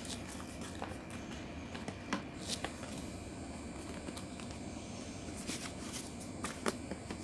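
A camera's cardboard box and its paper inserts being opened and handled: a few light paper rustles and taps scattered over a steady background noise.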